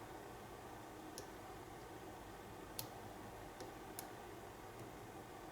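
Faint, sharp ticks of a lock pick working the pins of an American pin-tumbler padlock during single-pin picking, where the pins include spool pins. A handful of irregular clicks come about a second apart over a low, steady background hum.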